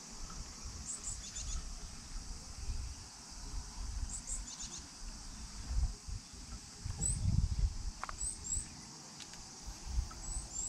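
A steady high drone of summer insects from the shoreline woods, with short high bird chirps several times over an uneven low rumble of wind and water.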